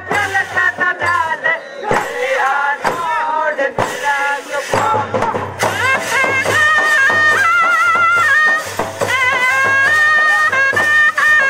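Loud Indian folk music accompanying a group dance: a singing voice in the first half, then from about six seconds in a melody that steps between held notes, over a steady low drum beat.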